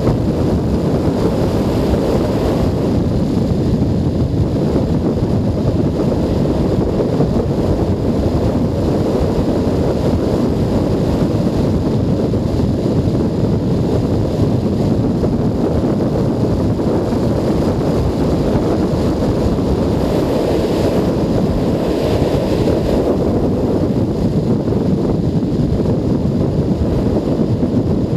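Steady wind rush over a helmet-mounted camera's microphone on a moving motorcycle, a continuous low noise with no breaks.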